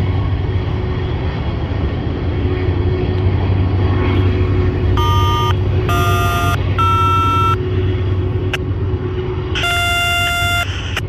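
Locomotive air horn from a train out of sight sounding four multi-note blasts, three short ones about a second apart and then a longer one near the end, over a steady low rumble.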